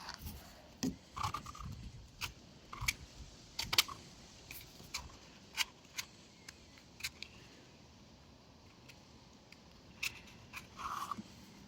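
Irregular sharp clicks and light knocks, as of plastic parts being handled, with a lull of a couple of seconds before a few more near the end. The vacuum cleaner's motor is not running.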